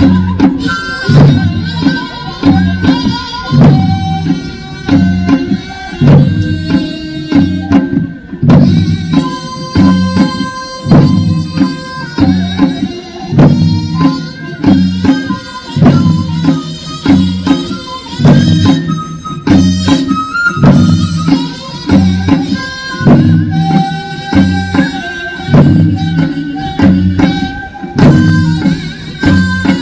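Korean traditional music for a sword dance: a steady, repeating drum pattern with a reedy wind instrument playing long, wavering notes over it.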